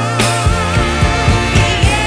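Background music: a pop or soul song with a singer holding a long note with vibrato over a steady beat.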